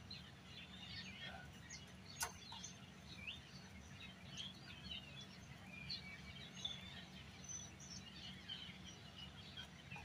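Faint birds chirping in the background over a low steady hum, with one sharp click about two seconds in.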